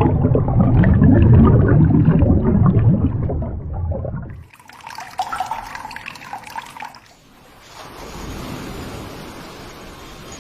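Running water in three stretches that change abruptly: a loud, low rushing until a little under halfway, then a quieter, patchy trickle, then a steady even wash of water from about three-quarters in.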